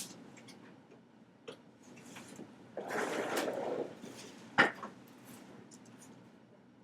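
A soft, second-long shuffling noise, then one sharp crack just after halfway: a neck joint popping during a chiropractic cervical adjustment.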